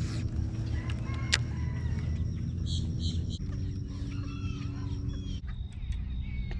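Birds calling with short clucking, chicken-like notes over a steady low hum.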